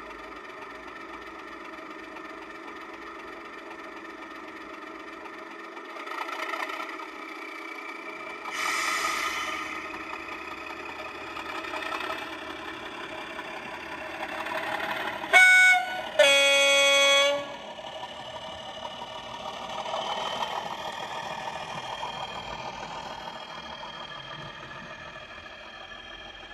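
Soundtraxx Econami DCC sound decoder in a Bachmann Class 37 model playing Class 37 diesel sounds through the model's small speaker: the engine ticks over and swells up several times as the locomotive pulls away. About halfway through, the two-tone horn sounds a short high note and then a longer low note, and the engine is quieter near the end.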